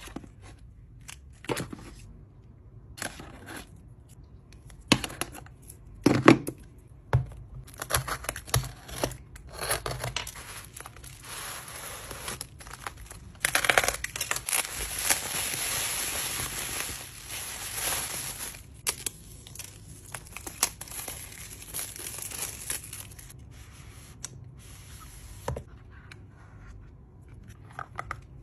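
Close handling sounds of unboxing: cardboard and paper packaging rustling, tapping and sliding, with a sharp cluster of clicks about six seconds in. About halfway through, plastic bubble wrap crinkles and tears for about five seconds.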